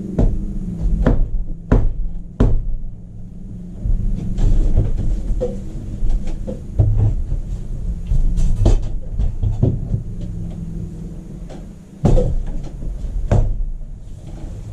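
Ratchet strap being cranked tight to pull damaged barn rafters back into line: an irregular run of clicks and knocks from the ratchet, over a steady low rumble.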